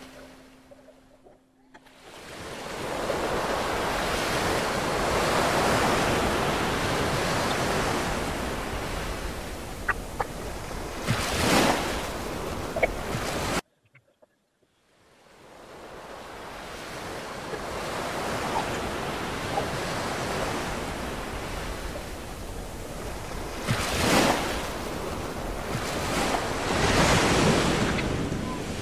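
Sea water rushing and sloshing around an action camera held underwater in shallow surf, sped up to double speed. The noise drops away briefly near the start and cuts out suddenly for about a second halfway through.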